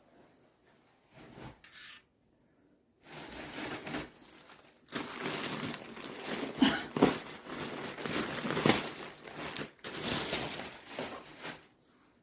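Plastic or paper packaging crinkling and tearing as it is handled, in a short burst and then a longer stretch of crackly rustling with a few sharp crackles.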